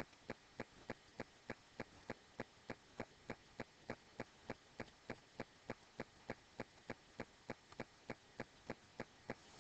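Faint, even mechanical ticking, about three ticks a second, steady throughout.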